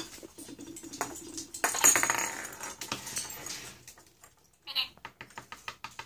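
Hollow plastic toy ball rattling and jingling as a dusky lory pushes and rolls it. A knock at the start, a loud run of jingling about two seconds in that fades over the next second or so, and a shorter burst near the end.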